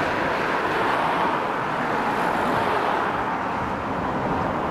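Steady rushing engine noise, even in level throughout, with no single vehicle or aircraft passing close by.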